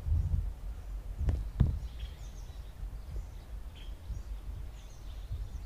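Faint, scattered bird chirps over a low rumble, with two sharp knocks close together about a second and a half in.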